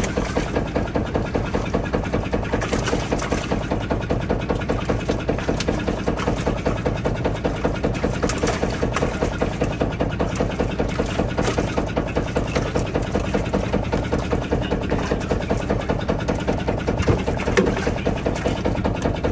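Fishing boat's engine idling with a steady, even chugging of about four to five beats a second. A few knocks from the trap gear being handled sit on top, the loudest near the end.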